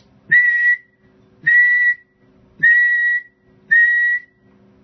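Four short whistles on one steady high note, each about half a second long, used as a test signal to drive a ham radio transmitter and linear amplifier into a power meter. A faint steady hum lies underneath, and each whistle starts with a soft knock.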